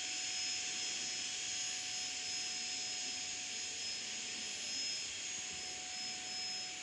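Steady hiss of background noise with faint constant high tones, unchanging throughout and with no distinct sound events.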